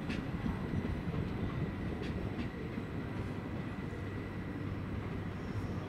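Regional passenger train rolling across the tracks: a steady low rumble with a few sharp wheel clicks over rail joints, one at the start and two about two seconds in.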